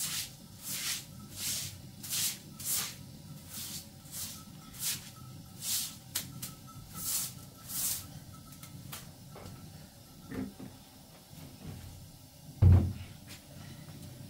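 A short straw hand broom sweeping a wet concrete floor: quick repeated swishing strokes, one to two a second, which stop about two-thirds of the way through. Near the end comes a single loud thump.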